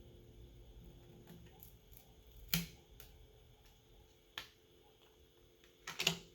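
Sharp little clicks and taps of small tools and plastic parts as a smartphone is taken apart: a loud click about two and a half seconds in, another a little after four seconds, and a quick double click near the end, with faint ticks between.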